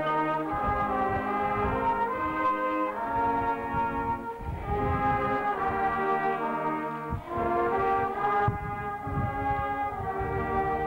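Brass band of trumpets, euphoniums and tubas playing a tune in held chords.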